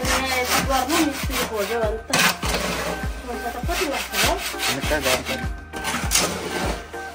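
Steel shovel scraping and chopping through wet concrete mix in a plastic wheelbarrow: a quick run of rough scrapes, pausing briefly twice.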